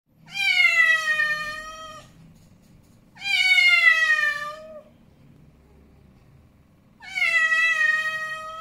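Angry male cat giving three long, drawn-out meows a second or so apart, each starting higher and falling a little in pitch.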